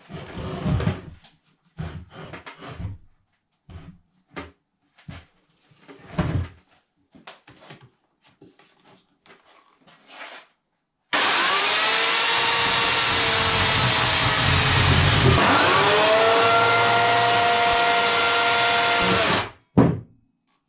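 Rustling and knocks as a dry chestnut log is handled and brushed off, then an electric chainsaw starts abruptly and runs for about eight seconds, its motor pitch dipping and recovering about midway as the chain bites into the wood, before cutting off; a short knock follows.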